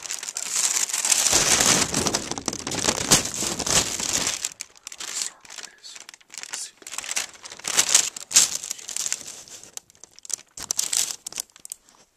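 Loud, irregular crinkling and rustling handling noise as the recording camera or phone is moved about and rubbed against paper and a blanket. It is dense for the first few seconds, then comes in short, ragged spells.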